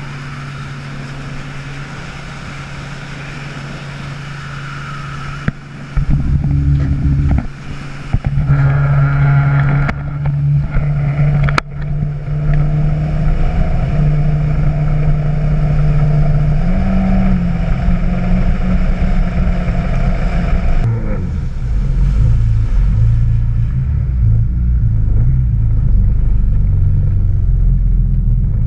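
Yamaha WaveRunner engine running underway with the hull rushing over the water. About six seconds in it gets louder and rougher, the pitch shifts through the middle, and in the last few seconds it settles into a deep, low rumble.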